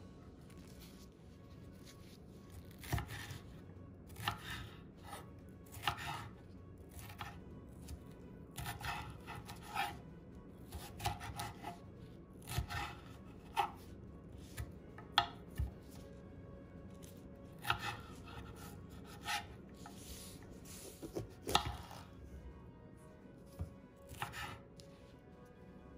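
Chef's knife slicing bell peppers into strips on a wooden cutting board: crisp cuts, each ending in a knock of the blade on the board, coming at an uneven pace with short pauses between runs.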